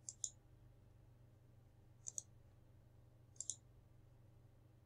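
Computer mouse buttons clicking: three quick pairs of clicks, a second or so apart, over a faint low hum.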